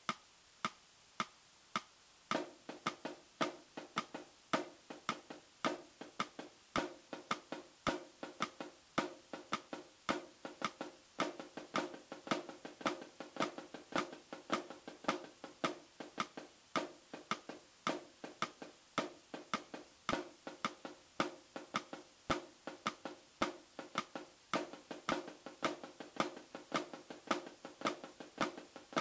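Pair of wooden drumsticks playing a flam rudiment exercise on a drum head: a steady even rhythm of accented strokes with quieter grace notes and taps between them, each stroke ringing briefly. The strokes are sparser for about the first two seconds, then come thicker.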